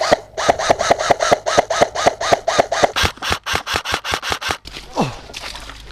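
Airsoft electric rifle fired in rapid semi-automatic shots, about five a second. Each shot is a sharp click with a brief motor whine that rises and falls. The shots come faster just after three seconds and stop about four and a half seconds in.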